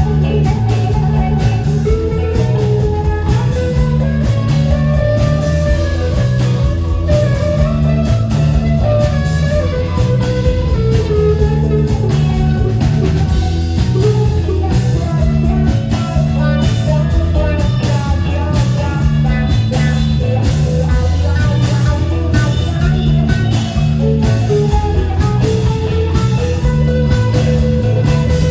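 Live rock band playing: electric guitars, bass guitar and drum kit, with a lead guitar line wandering up and down over the steady bass and drums.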